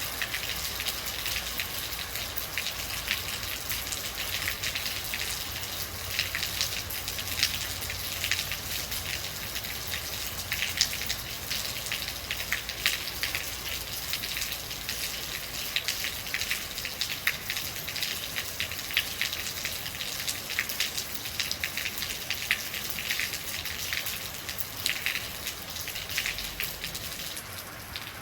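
Rain falling steadily: a continuous hiss dotted with many irregular, close drop impacts.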